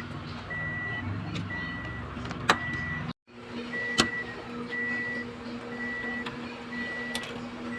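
Electronic warning beeper sounding a short, high beep about once a second, over a steady low hum, with a few sharp clicks.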